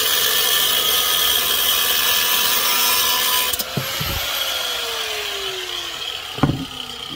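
Angle grinder's cut-off wheel cutting through a tab on a chrome motorcycle fender. At about three and a half seconds it is switched off and its whine falls slowly in pitch as the disc spins down. There are a few knocks, and a sharp knock near the end.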